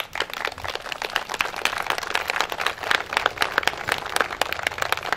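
Applause from a small crowd, the separate hand claps plainly distinct.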